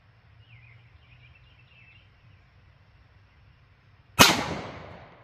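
A single .357 SIG pistol shot from a Smith & Wesson M&P with a 4.25-inch barrel, firing a 115-grain load, about four seconds in. It is a sharp crack whose echo dies away over about a second. Faint bird chirps come before it.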